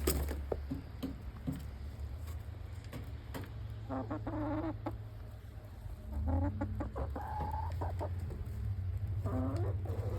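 Chickens clucking: a few short calls about four seconds in, a longer run about six seconds in and another near the end, with scattered sharp taps in the first couple of seconds.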